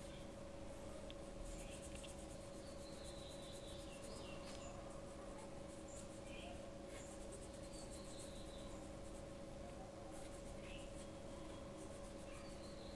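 A paintbrush stroking wet blue paint onto paper, giving faint, soft scratchy brushing sounds every second or two. A steady faint hum runs underneath.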